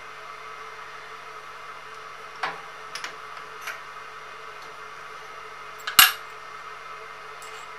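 Steady machine motor hum, with a few light metal clicks and one sharp metallic clack about six seconds in as small metal parts are handled on the drilling setup.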